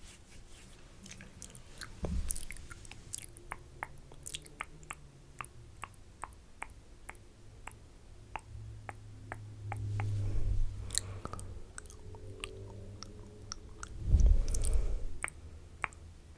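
Close-miked wet mouth sounds: a run of small clicks and smacks, about three a second, with low muffled bumps at about two, ten and fourteen seconds in, the last the loudest.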